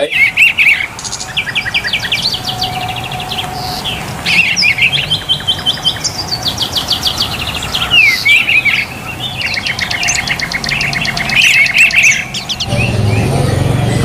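Many songbirds chirping and trilling together, with fast runs of repeated high notes from several birds overlapping, over a low background rumble.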